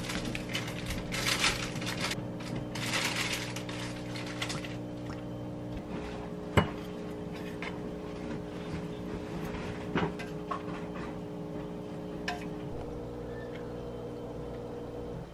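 Kitchen handling sounds over a steady low hum: a sauce pouch rustles as it is squeezed out in the first few seconds. A sharp clink of a dish comes about six and a half seconds in, with a smaller knock near ten seconds and a light click a little later.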